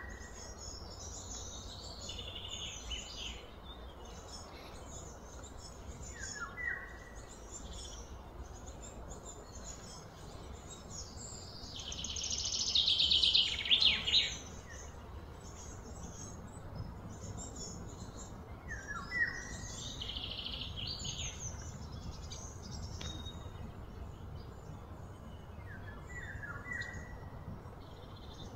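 Outdoor birds chirping and calling on and off, with a short falling call heard a few times. About midway there is a louder rasping burst lasting around two seconds, all over a steady low background rumble.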